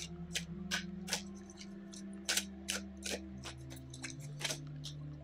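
A deck of tarot cards being shuffled by hand: an uneven run of sharp card snaps and flicks, roughly three or four a second.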